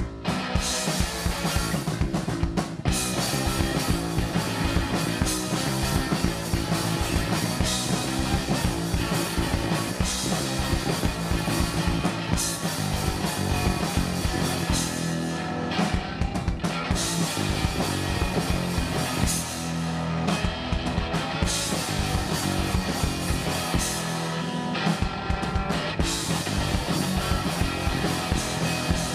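Punk rock trio playing live: electric guitar, bass guitar and drum kit driving along together in an instrumental stretch, with a steady beat of drum hits.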